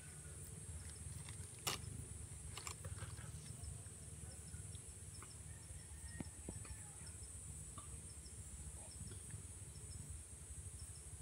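Faint, steady high-pitched drone of forest insects, with small chirps repeating over it and a low rumble underneath. A single sharp click comes about a second and a half in, and a softer one a second later.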